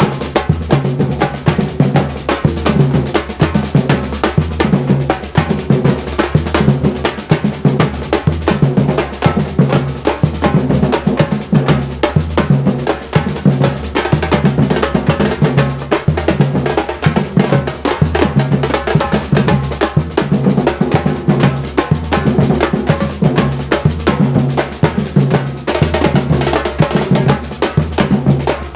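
Afro-Brazilian bloco drum corps playing: deep bass drums (surdos) and snare drums in a dense, driving, steady rhythm.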